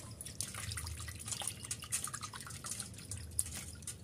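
Water splashing and dripping in a steel bowl as hands wash and rub pieces of cut Bombay duck fish, with small irregular splashes and drips.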